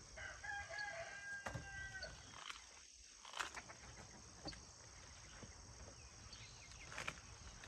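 A rooster crowing once in one long call, over a steady high insect drone, with a few sharp snaps and rustles scattered through.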